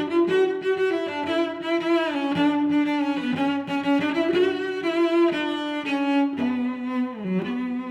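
Background music: a melody of bowed string instruments, cello-like, playing held notes that change every second or so.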